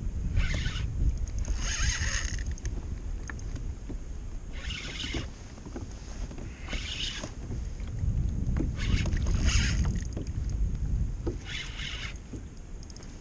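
Spinning reel in about seven short bursts, spaced irregularly, as it works against a hooked redfish. Under it runs a steady low rumble of wind on the microphone.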